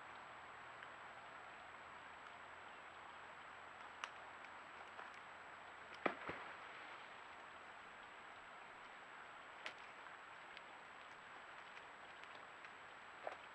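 Faint steady hiss with a thin high whine, broken by a few sharp snaps of sticks, the loudest pair about six seconds in, as mountain lions step along a beaver dam of piled sticks.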